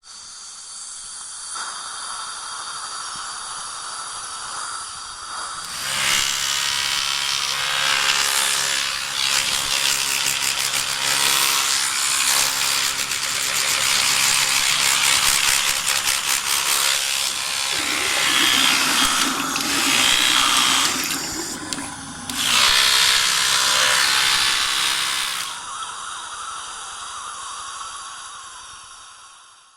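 Dental cleaning instruments: a steady high-pitched whine of a dental handpiece, joined about six seconds in by loud hissing over a low buzz. It settles back to the whine a few seconds before the end and fades out.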